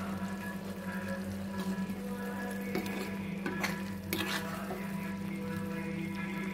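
A metal ladle stirs and scrapes thick mushroom gravy simmering in a pan, with a few short clinks and scrapes about three and a half to four and a half seconds in, over a steady low hum.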